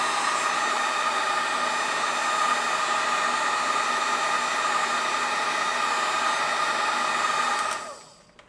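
Electric heat gun running steadily, blowing hot air to shrink heat-shrink tubing over a soldered wire joint. It is switched off near the end and dies away quickly.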